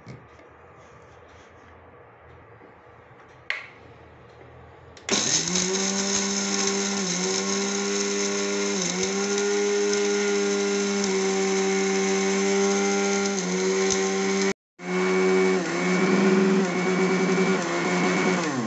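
Sumeet mixer grinder running with its steel dry jar, grinding dry-roasted whole spices to powder. After a click, the motor starts abruptly about five seconds in. Its whine dips in pitch now and then as the load shifts, cuts out for a split second near the end and restarts, then stops.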